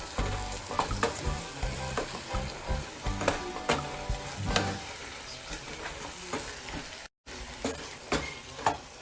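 Chicken gizzards and liver sizzling in a pan of chili sambal while a utensil stirs, scraping and clinking against the pan. The sound cuts out for an instant about seven seconds in.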